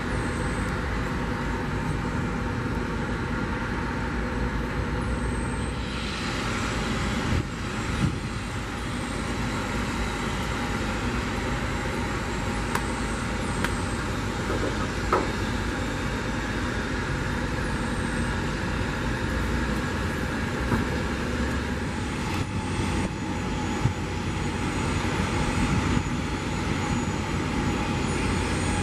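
Steady rumble and hiss of an Airbus A320-family jet airliner's engines at taxi power.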